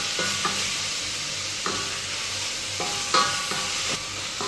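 Grated carrots, onion and garlic sizzling in hot oil in a stainless steel pot while being stirred with a wooden spoon. The spoon knocks against the pot several times, each knock leaving a short metallic ring, the loudest about three seconds in.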